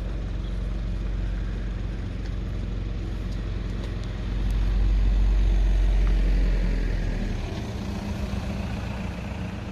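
Car engine idling close by, a steady low hum, with a louder low rumble for about three seconds in the middle.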